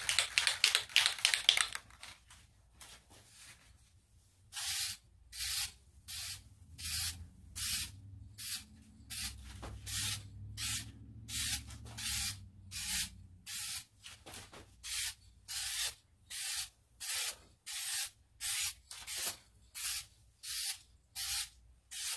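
Aerosol can of flat black automotive trim and bumper paint: first a fast clicking rattle of the mixing ball as the can is shaken, then after a short pause a long run of short hissing spray bursts, a bit more than one a second, laying down light coats.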